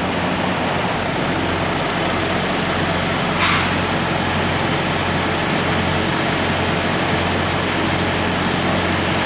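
Heavy diesel truck engine idling with a steady low hum, with a short burst of air hiss about three and a half seconds in.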